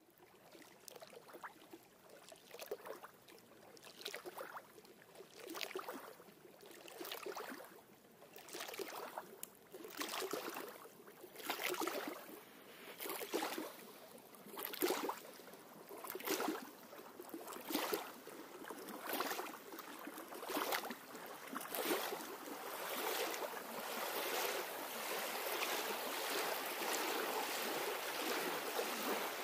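Small river waves lapping on the shore, a wash about every second and a half that grows stronger and runs together into a steady wash near the end.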